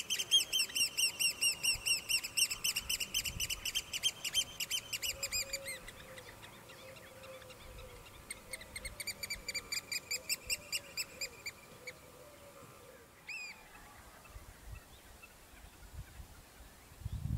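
Eurasian oystercatchers piping: a rapid run of shrill, repeated call notes at about four a second that fades away, then a second, fainter run a few seconds later. About 13 seconds in there is a single short call.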